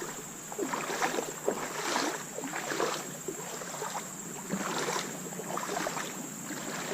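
Boots wading through shallow creek water, a splash and slosh with each step, about one step a second.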